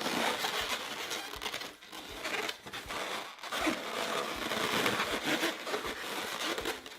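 Inflated latex 260 twisting balloons rubbing and scrunching against each other as they are handled and pressed into place.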